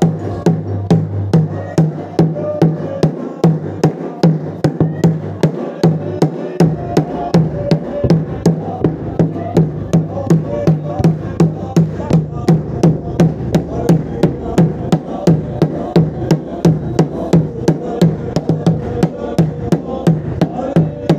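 Voices singing a Mizo spiritual song (thlarau lam zai) over a steady, driving percussive beat.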